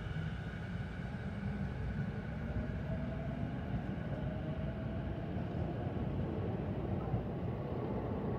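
Sotetsu 11000 series electric train pulling out and accelerating away: a steady low running rumble, with a whine that rises slowly in pitch as it gathers speed while the higher tones fade in the first few seconds.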